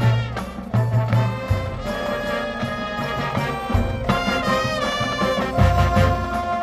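High school marching band brass section playing held chords, with strong low notes underneath that grow heavier near the end.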